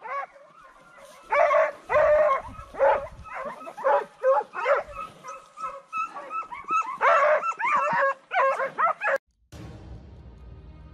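A dog barking and yelping excitedly in a quick run of short, high-pitched calls. It cuts off abruptly about nine seconds in and faint music takes over.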